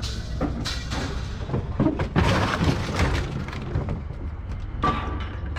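Scrap metal crashing and clattering as pieces are thrown down onto a pile, a series of sharp impacts over a steady low rumble.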